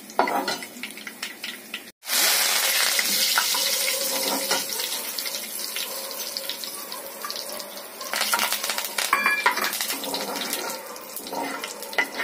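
Whole dried red chillies dropped into hot oil for a tadka: the oil sizzles loudly all at once about two seconds in, then slowly settles. A spoon clicks against the pan before and after.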